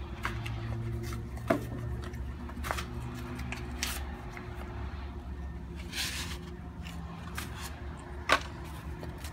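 Handling of an Exo Terra artificial jungle vine as it is pulled and stretched out: scattered rustling and scraping with two sharp clicks, one about a second and a half in and a louder one near the end, over a steady low background drone.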